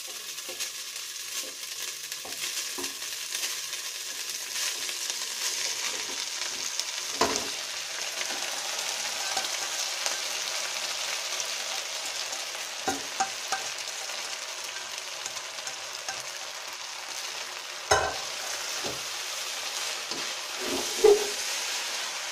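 Boiled rice sizzling as it is tipped into hot butter and garlic in a cooking pot and stirred, a steady hiss that starts as the rice goes in. A few sharp knocks against the pot come through the sizzle.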